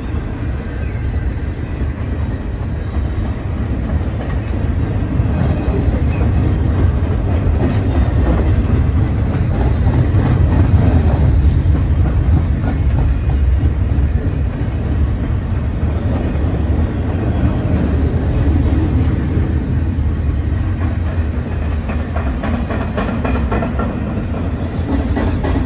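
Norfolk Southern freight train cars rolling past, their wheels clicking over the rail joints in a steady run, with a deep wind rumble buffeting the microphone.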